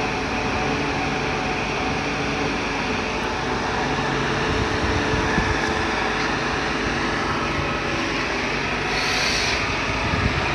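Heavy diesel truck engine running steadily, with a short hiss about nine seconds in.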